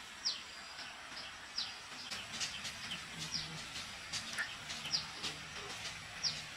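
A bird calling over and over, a short high chirp falling in pitch about every second and a half, with faint scattered clicks underneath.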